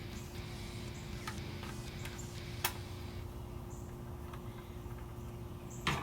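Light clicks and taps from handling and taking apart an LED floodlight fixture, with a sharper click about two and a half seconds in and a louder knock near the end, over a steady low hum.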